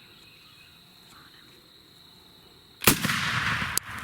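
A single shotgun blast at a turkey, sudden and loud about three seconds in, trailing off over about a second. Before it, a faint steady high insect buzz.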